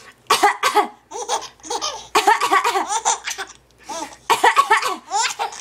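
Three-month-old baby laughing in four or five separate bursts.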